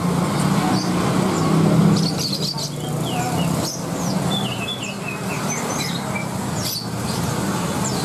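Many caged songbirds chirping and twittering in short, quick high calls throughout, over a steady low hum of motorbike traffic.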